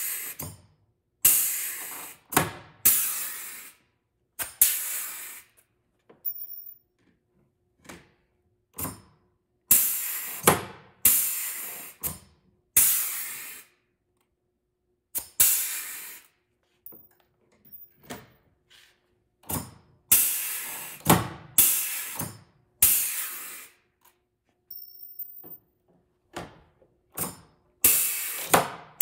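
Pneumatic rivet gun setting rivets one after another: a string of sharp hissing bursts of air, each starting suddenly and fading, at irregular gaps.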